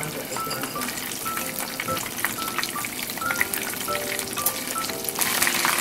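Breaded prawns deep-frying in hot oil in a small saucepan: a dense, steady crackling sizzle. The crackle grows louder about five seconds in, as the prawns are turned with chopsticks.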